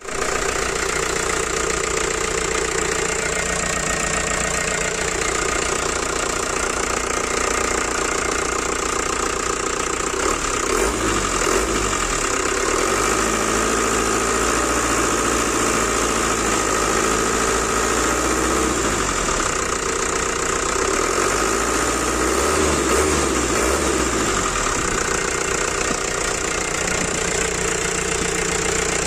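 Diesel truck engine running with an inline injection pump, mostly at a steady idle, its speed rising and falling several times in the middle stretch.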